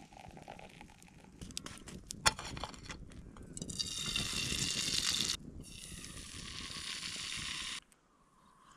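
Camp cooking sounds: a few sharp clicks and knocks from cookware, then two stretches of steady hiss that each cut off suddenly.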